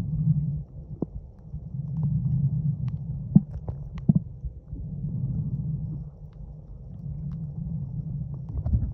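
Muffled underwater rumble of moving water picked up by a camera submerged in shallow sea water, swelling and fading every few seconds, with a few sharp clicks.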